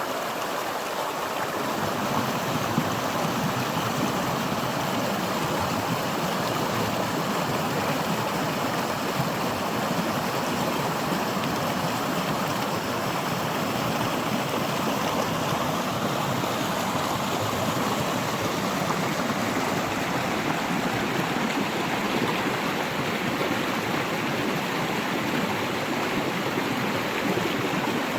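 Running water of a mountain stream rushing steadily over rocks, a dense even noise without breaks.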